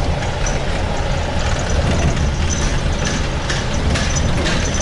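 Engine and road noise of a moving vehicle heard from inside it: a steady low rumble with a hiss of traffic and wind.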